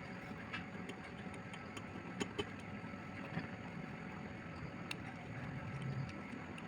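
Faint steady mechanical hum with a few scattered small clicks.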